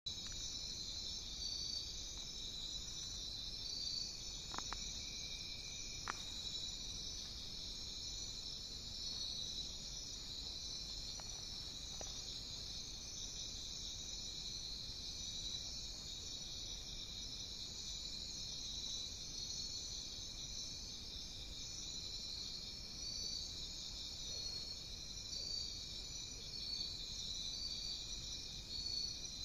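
Steady chorus of night insects such as crickets trilling, with a constant high tone under it. Two sharp clicks come about four and six seconds in.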